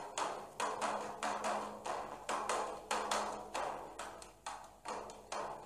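Rhythmic percussion accompaniment for a sung syair: dry, wood-block-like strikes about three a second in an uneven, clip-clop pattern, over a faint steady low tone.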